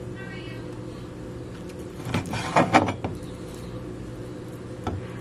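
Chef's knife cutting raw chicken breast on a plastic cutting board: a short run of knocks and scraping about two seconds in, then a single tap near the end. A steady low hum sits underneath throughout.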